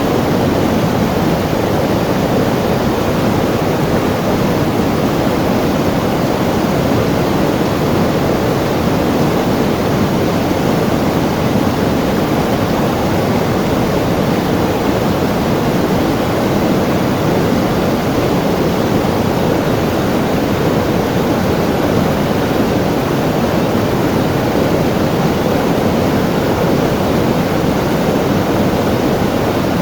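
River water rushing and splashing over rocks: a steady, even noise that does not change.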